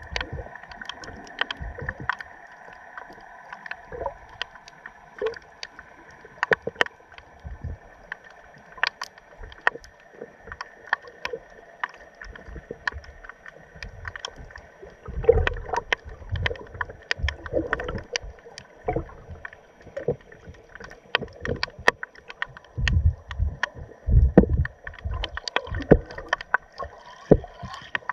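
Underwater sound picked up by a camera submerged near the seabed: many irregular sharp clicks and pops over a faint steady hum, with bursts of low thumps from water surging around the camera, heaviest midway and again later on.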